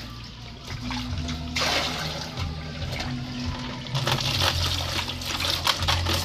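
Water splashing and sloshing in a plastic basin as it is scooped and splashed by hand over a wet puppy, busier from about four seconds in.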